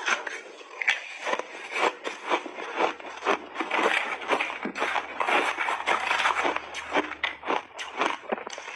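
Close-miked crunching of refrozen mixed-berry ice being chewed in big bites: a dense, uneven run of crackling crunches. A metal spoon scrapes the bowl while scooping more.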